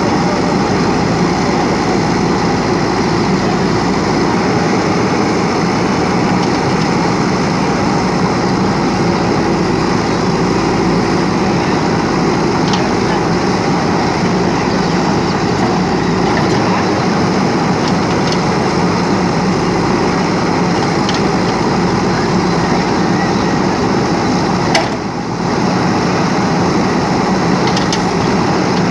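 JCB backhoe loader's diesel engine running steadily as the machine works, with a brief drop in level near the end.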